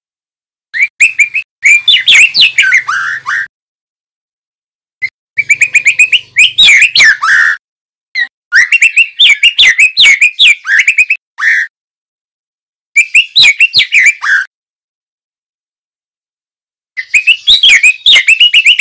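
Young male white-rumped shama (murai batu) singing in about five bursts of rapid, varied whistled notes, each a few seconds long, with short silent pauses between them.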